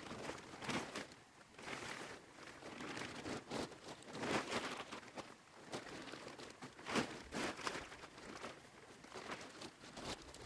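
A large clear plastic sheet being handled and folded up, crinkling and rustling in irregular bursts, loudest about four and a half and seven seconds in.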